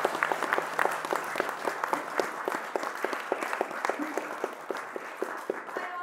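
Audience applauding: dense clapping from many hands that slowly grows quieter.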